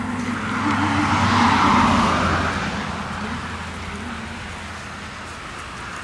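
ATV engine hum running steadily, with a vehicle driving past whose noise swells and then fades over the first three seconds.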